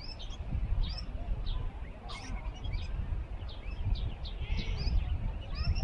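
Small birds chirping: many short, quick down-slurred chirps, over a steady low rumble.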